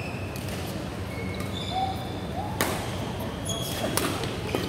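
Badminton rally in a large hall: rackets striking a shuttlecock with several sharp cracks, the first about halfway through, amid short squeaks of court shoes on the floor and a steady low hum.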